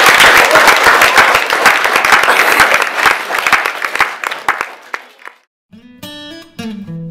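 An audience of children clapping, loud at first, then thinning and dying away about five seconds in. After a short gap, acoustic guitar music begins.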